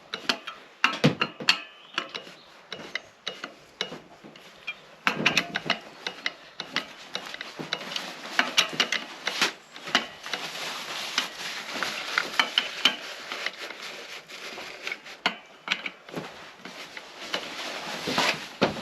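Hand work on a motorcycle engine: metal tools and small engine parts clicking and knocking, with stretches of rubbing and rustling.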